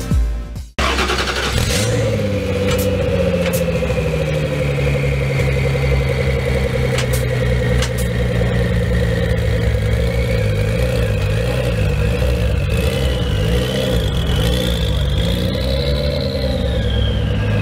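2016 Ford GT's twin-turbo V6 running steadily at idle, its pitch wavering slightly. A higher whine rises over the last few seconds, then falls away near the end.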